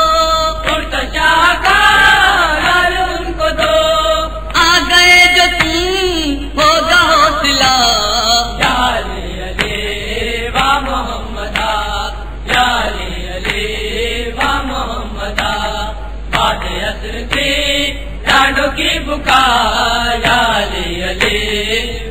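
Chanting of an Urdu noha, a Shia mourning lament, in long wavering melodic phrases.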